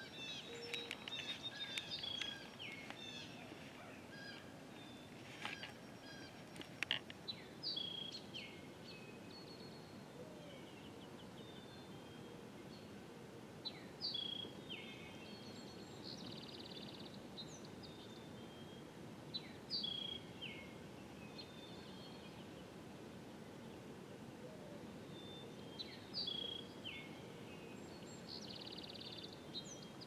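Wild songbirds singing faintly, one bird repeating a short falling song phrase about every six seconds, with a thick flurry of chirps in the first few seconds, over a steady background hiss.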